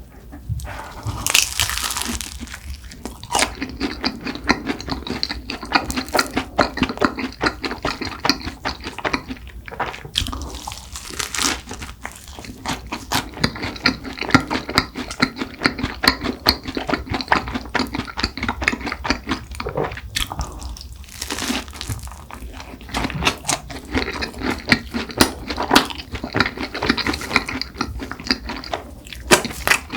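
Close-miked eating of cronuts: wet, sticky chewing and mouth clicks going on steadily, with a few louder bites or crunches along the way.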